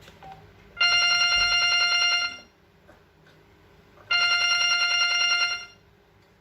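LG KU950 mobile phone playing a telephone-style ringtone through its speaker: a fast-trilling ring heard twice, each ring about a second and a half long with a pause of nearly two seconds between.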